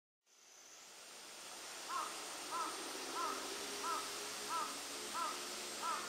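Steady hiss of a small waterfall fades up, and from about two seconds in a bird calls seven times in an even series, about one and a half short arched calls a second.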